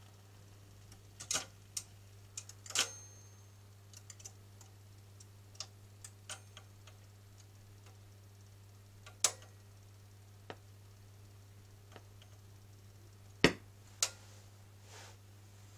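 Graetz Grazioso 7-inch record changer's mechanism cycling after the record has ended: a scatter of sharp mechanical clicks and clacks as the tonearm lifts and swings back to its rest, the loudest clack near the end. A steady low hum runs underneath.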